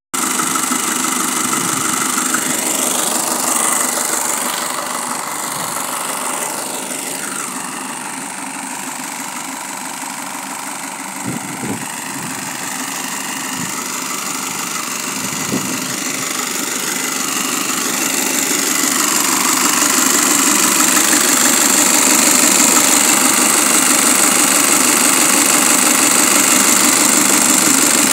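Nissan YD25DDTi 2.5-litre four-cylinder diesel engine, converted to a mechanical injection pump, running steadily at idle. It gets louder in the second half, with a couple of brief knocks near the middle.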